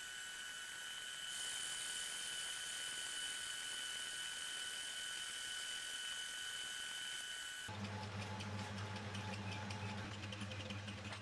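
A machine running with a steady high whine over a hiss. About eight seconds in, the sound switches abruptly to a lower hum with a fast rattle.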